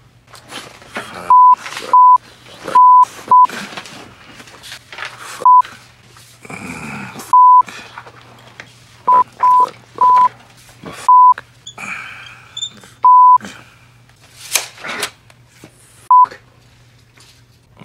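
Censor bleeps: about a dozen short single-pitch beeps at irregular intervals, each blanking out a swear word. Quiet sounds of movement fill the gaps between them, and there is one sharp click about three-quarters of the way through.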